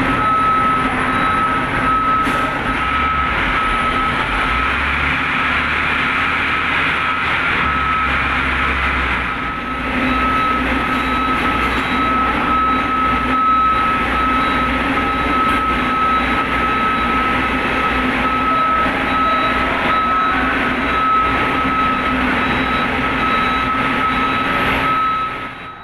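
Heavy equipment's diesel engine running steadily, a low rumble with a steady high-pitched tone over it, dipping briefly about a third of the way in.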